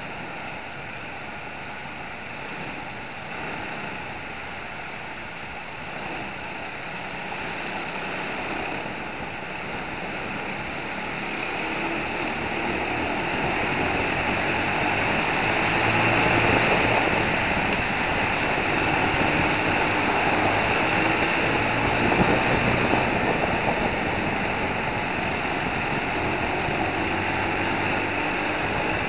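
Racing kart four-stroke engines running at speed in a close pack, under a steady rush of wind on the onboard microphone. It grows louder through the middle and eases slightly near the end.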